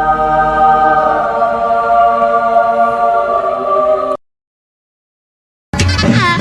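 A sustained, choir-like musical chord, held and slowly shifting. It cuts off abruptly about four seconds in, and after a gap of silence another music clip begins with a falling sweep near the end.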